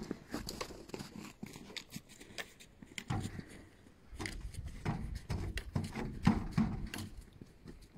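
Irregular crunching steps in snow, with a low rumble on the microphone from about three seconds in.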